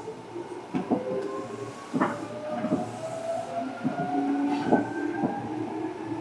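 Seibu 2000 series electric train accelerating: its traction motor whine climbs steadily in pitch. Irregular knocks from the wheels running over rail joints come through it.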